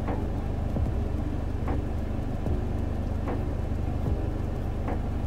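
Steady low hum of a running car heard from inside the cabin, with a few faint ticks about every second and a half.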